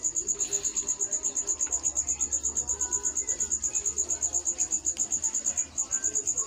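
Insect chirping: a steady, fast, high-pitched pulsing of about eleven chirps a second.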